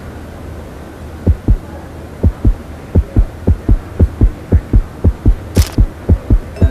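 Heartbeat sound effect: paired lub-dub thumps over a low steady hum, starting about a second in and quickening to about two beats a second. A brief high shimmer sounds about five and a half seconds in.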